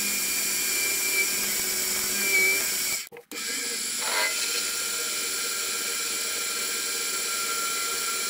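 Chinese mini lathe running steadily while a tailstock-held drill bit bores into the end of a spinning metal workpiece: a constant motor whine. The sound cuts out for a moment about three seconds in, then carries on with a brief rise and fall in pitch.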